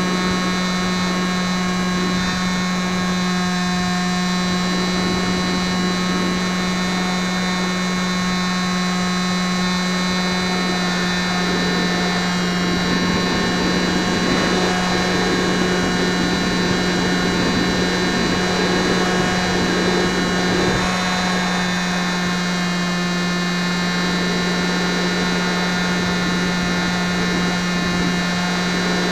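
RC model airplane's motor and propeller running steadily in flight, a low drone with a whine of many overtones. Picked up up close by a keychain camera taped to the airframe.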